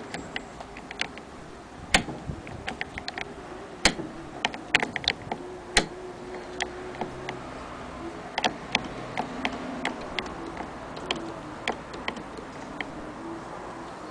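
Irregular sharp clicks and knocks, three of them louder than the rest, from hands handling a Singer 48K hand-crank sewing machine and its domed wooden case.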